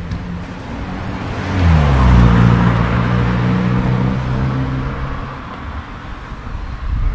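A car driving past on the street: its engine and tyre noise build to a peak about two seconds in, the engine note dropping in pitch as it passes, then fading over the next few seconds.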